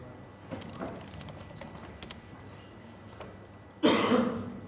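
Faint laptop keyboard typing and key clicks, with one brief louder burst of sound near the end.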